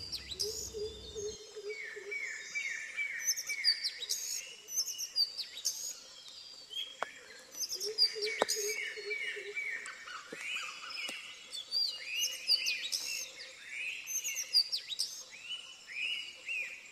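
Several wild birds calling at once: repeated short chirps and falling whistled notes, overlapping in phrases.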